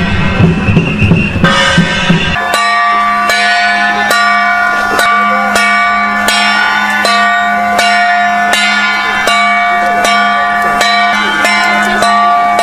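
Loud drumming music for about the first two seconds, then a metal bell struck again and again at a steady beat, a little over once a second, each strike ringing on over a steady low hum.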